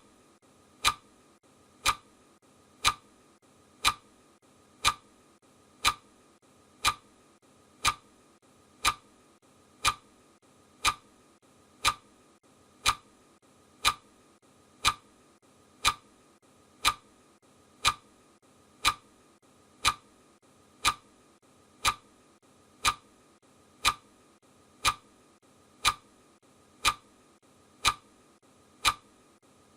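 Clock-tick sound effect: one sharp, even tick every second, steady and unchanging.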